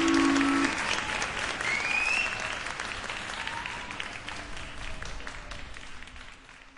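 Audience applauding after a live song, fading out steadily toward the end. A held low note from the band stops less than a second in.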